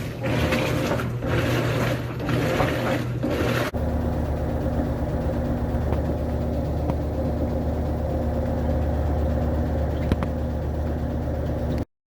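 Maytag washing machine running with its splutch actuator replaced: a noisy, pulsing sound over a low motor hum, changing abruptly about four seconds in to a steady low hum, cutting off just before the end.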